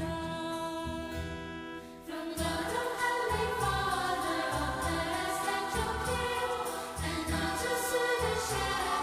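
Music with choir-like singing; a steady bass beat comes in a little over two seconds in.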